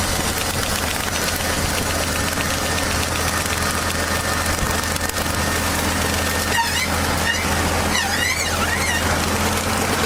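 A machine's engine running steadily, with a wavering high-pitched squeal over it for a few seconds from about the middle.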